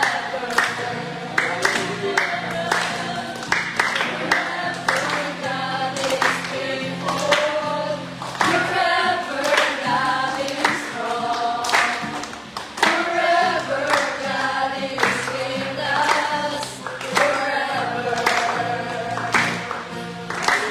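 Worship music: a group of voices singing a worship song together over sustained low instrumental notes and a steady beat.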